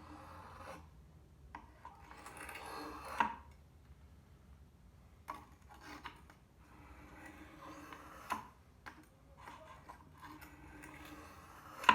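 Scissor blade being rubbed across an oil stone: soft scraping strokes in a few longer passes, with light clicks between them and a sharp click near the end.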